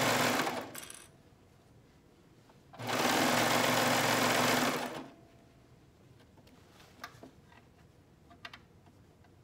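Serger (overlock machine) stitching a neck band onto a knit T-shirt in short runs: it runs for the first half second and stops, then runs again for about two seconds. A few faint clicks of handling follow near the end.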